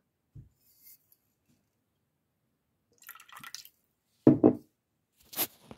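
Rice vinegar poured from a bottle into a bowl of sauce: a short faint trickle about three seconds in, then two brief loud splashes near the end.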